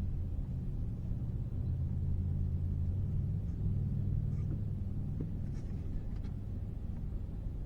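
Low, steady engine hum with a few faint clicks.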